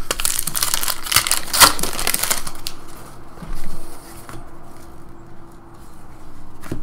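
A 2012 Upper Deck Goodwin Champions card pack's wrapper crinkling and tearing in the hands, a dense run of crackles for about two and a half seconds. Then quieter rustling and flicking as the cards are slid through one by one.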